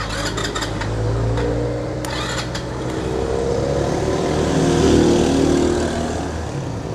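Motorcycle engine noise: a steady low engine hum, with an engine tone rising and growing louder to a peak about five seconds in, then fading. Short clusters of light clicks come near the start and again about two seconds in.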